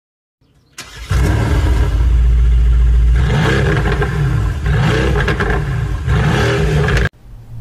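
A car engine starts about a second in and runs loud, revved up and back down a few times, then cuts off suddenly near the end.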